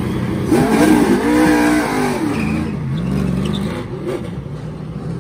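NASCAR Truck Series race truck's V8 engine revving hard as the truck accelerates out of its pit stall: the engine note climbs sharply about half a second in, holds, then falls away and rises again as it shifts and drives off.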